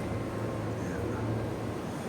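Steady low hum with an even rushing noise over it, typical of machinery or air handling running, with a couple of faint short squeaks about a second in.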